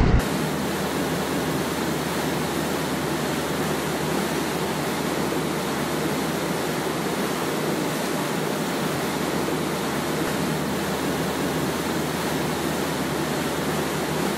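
A steady, even hiss of noise with no tune, rhythm or voice, cutting in abruptly just after the start.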